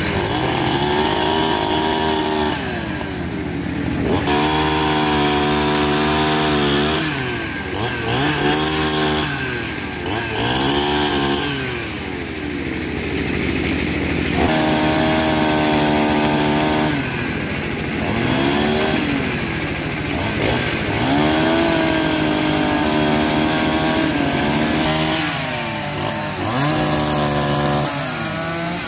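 Chainsaw cutting into a log, its engine revving up and dropping back again and again as the chain bites into the wood and eases off.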